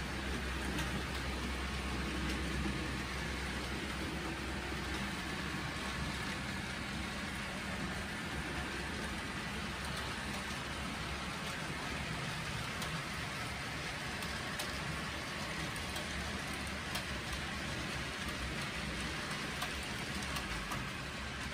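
H0-scale model freight cars rolling steadily along the track, a continuous wheel-on-rail rumble and hiss with occasional faint clicks.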